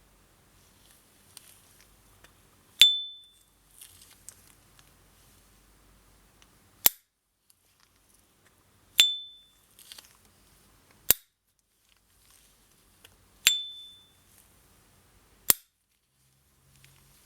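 S. T. Dupont Ligne 2 lighter lid flicked open three times, each opening giving a clear, high ringing ping that fades over about half a second. Each is followed a couple of seconds later by a short, sharp click as the lid snaps shut.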